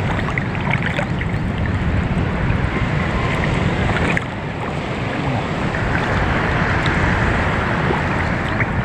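Sea water sloshing close to the microphone, with wind buffeting it; a steady wash of noise that dips briefly about four seconds in.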